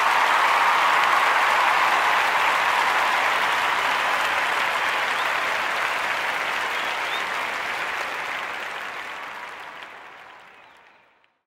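Audience applause, a dense steady wash of many hands clapping that fades out over the last few seconds.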